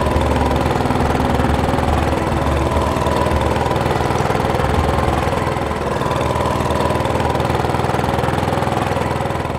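Small inboard engine of a wooden passenger boat running steadily at constant speed on floodwater.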